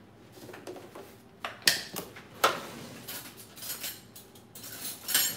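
Kitchen handling sounds: a glass jar of salt and utensils knocking and clinking on the counter, with two sharp knocks near the middle and some rustling.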